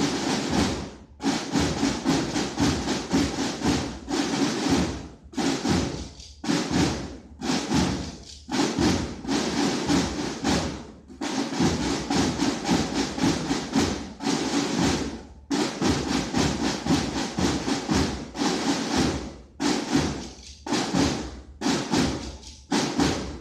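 Snare drums of a drum corps played together in unison, beating fast rhythmic patterns in short phrases of one to two seconds separated by brief breaks.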